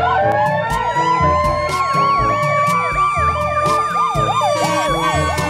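Ambulance sirens. One winds up to a steady wail while a second yelps, sweeping rapidly up and down about three times a second.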